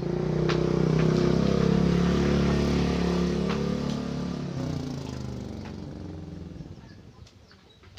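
A motor vehicle's engine running close by, loudest in the first few seconds, then fading away as it moves off, gone by about seven seconds in.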